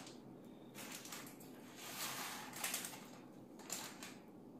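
Faint, soft squishing of sticky ground-beef meatball paste squeezed in a hand and scooped off with a metal spoon, coming in several short stretches.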